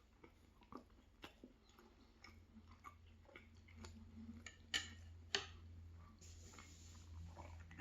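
Faint chewing of meat pie, with scattered small mouth clicks. Two sharper clicks come about five seconds in, then a soft hiss near the end.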